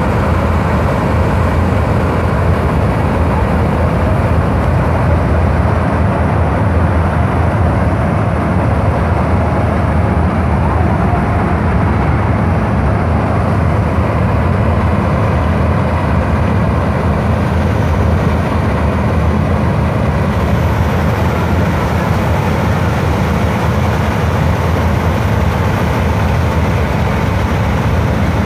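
Combine harvester engine running steadily and loudly, with no change in speed.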